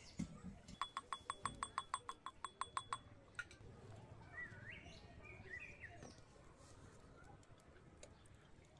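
Birds calling: a rapid rattling call of evenly spaced clicks, about seven a second for some two seconds, followed by a few short rising and falling chirps.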